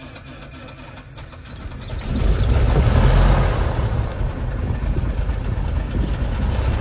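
The left engine of a Cessna T310R, a turbocharged six-cylinder Continental, turning over on its starter and then catching about two seconds in, settling into a steady idle just after start. Heard from inside the cockpit.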